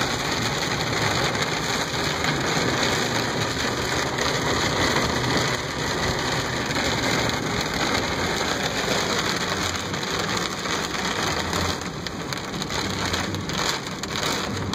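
Heavy rain falling steadily on the car's roof and windshield, heard from inside the moving car as a dense, even hiss that eases a little near the end.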